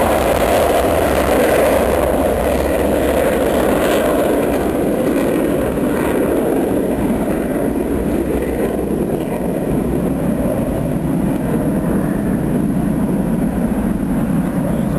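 Panavia Tornado's twin RB199 jet engines: a loud, steady rumble whose higher hiss dims from about five seconds in.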